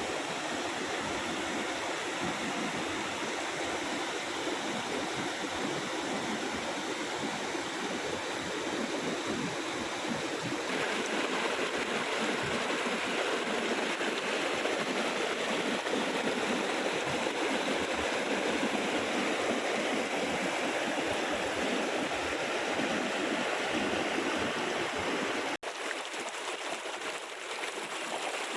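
Water rushing from a seasonal waterfall and stream: a steady, even rush. It breaks off for an instant near the end, then carries on with less low rumble.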